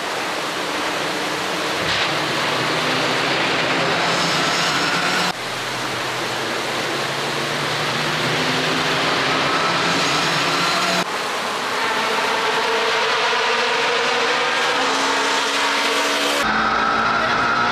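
Rally cars driving at full speed on a tarmac stage, their engines running high with rising revs, heard in several clips cut together so the sound changes abruptly three times.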